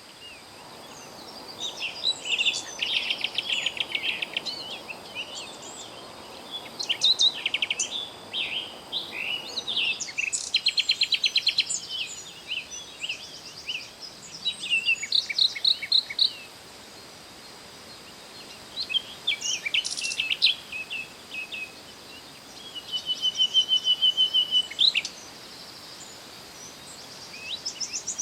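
Songbirds singing in repeated bursts of quick chirps and rapid trills, with short pauses between bursts, over a faint steady high-pitched whine.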